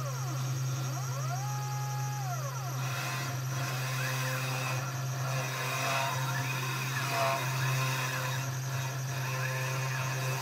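3020 desktop CNC router running an engraving job. The spindle motor hums steadily. The stepper motors whine in tones that rise, hold and fall with each move as the axes speed up and slow down. From about three seconds in, there is rough scratchy noise from the engraving bit cutting into the board.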